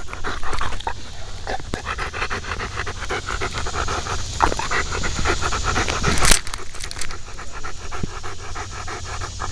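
A dog panting rapidly and evenly right at the microphone, from a camera mounted on the front of its harness. One brief, loud noise about six seconds in.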